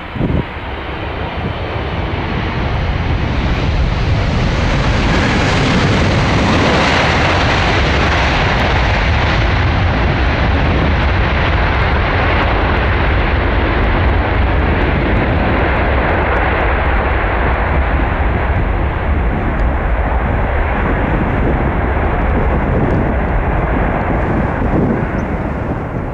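Jet engines of a Boeing 747-400 freighter in a loud, steady roar, swelling over the first few seconds and easing near the end.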